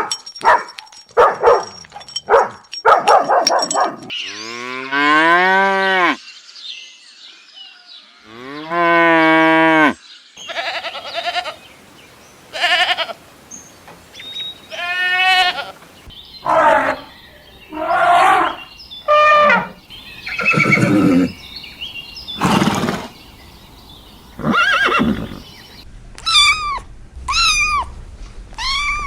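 A sequence of different animal calls, one after another: several quick sharp calls, two long drawn-out calls a few seconds in, then many shorter calls, and rapid repeated chirps near the end.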